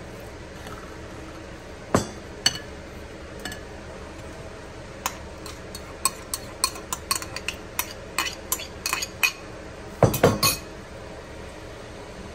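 A utensil clinking and knocking against a gold serving bowl as a potato salad is mixed: a couple of clinks, then a quick irregular run of them from about five to nine seconds in, and a louder cluster near ten seconds.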